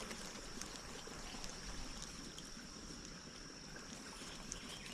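Creek water flowing steadily, an even rushing wash, with a constant high insect drone behind it.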